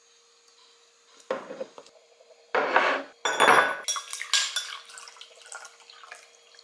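Coffee poured from above into a glass mug over an ice cube, in a few short separate pours about a second in, two seconds in and three seconds in, followed by a run of light clinks and cracks of ice against the glass.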